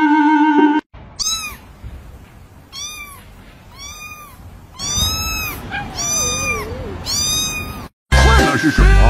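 A cat meowing repeatedly: six meows, each rising then falling in pitch, about a second apart.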